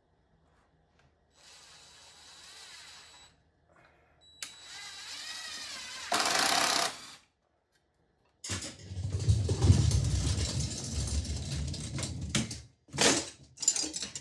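DeWalt cordless drill/driver run twice into a wooden tool rack, the motor whine bending in pitch with the trigger, the second run ending in a short louder spin. Then several seconds of loud rumbling, scraping handling noise with a few knocks near the end.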